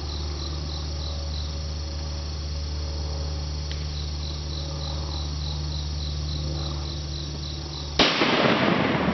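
Insects chirping in a steady pulsing rhythm, then about eight seconds in a single sharp gunshot from a squirrel hunter's gun, its echo dying away over a second or two.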